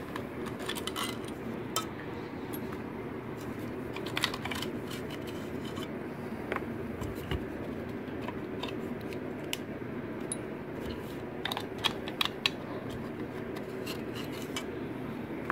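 Light metallic clicks and taps as rusty bolts and a steel axle pin, just out of a vinegar soak, are handled and set down on paper towel, over a steady low background hum.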